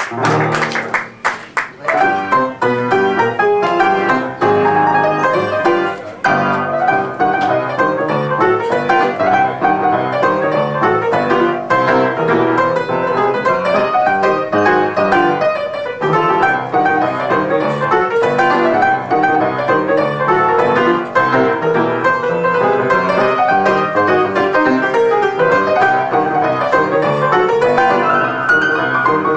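Ragtime played on an acoustic upright piano, busy and continuous, starting about two seconds in. A few seconds of hand clapping come at the very start.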